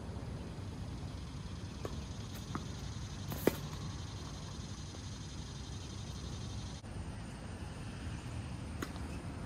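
A tennis ball struck once by a racket, a single sharp pop about three and a half seconds in, with a few faint ticks before and after, over a steady low rumble of outdoor background noise.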